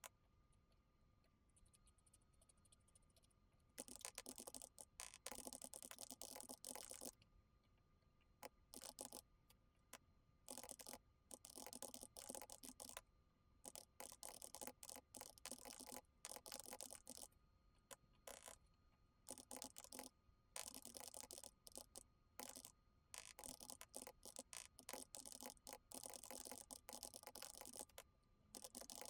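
Typing on a computer keyboard: rapid keystrokes in bursts of a second or a few seconds with short pauses between, starting about four seconds in.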